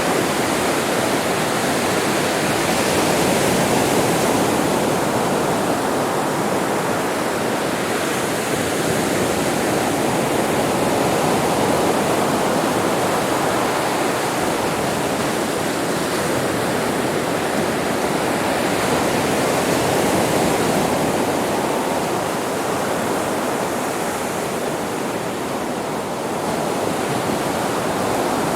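Ocean surf on a beach: a continuous wash of breaking waves that swells and eases slowly every several seconds.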